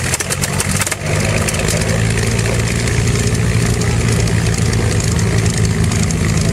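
P-51 Mustang's V-12 engine just after starting, burping and popping unevenly for about the first second, then settling into a steady idle.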